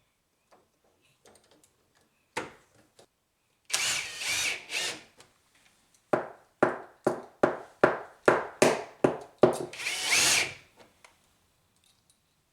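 Power drill driving a screw, likely a hinge screw through credit-card shims: one run of a second and a half, then about ten short trigger pulses in quick succession, then a final longer run.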